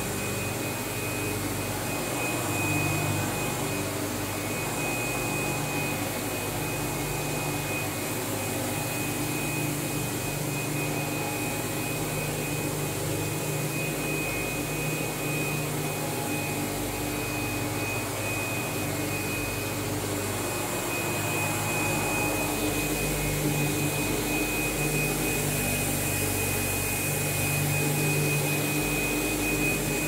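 2015 Windsor Versamatic VS18 commercial upright vacuum running steadily while pushed back and forth over carpet: a constant motor hum with a steady high whine over it, getting a little louder in the last third.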